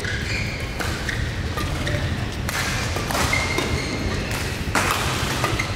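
Badminton rally in a large hall: rackets striking the shuttlecock with sharp hits every second or two, with players' footwork and shoe squeaks on the court between hits.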